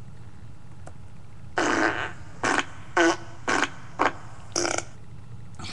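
A quick run of about six fart sounds, short rough blasts spaced roughly half a second apart, the first the longest.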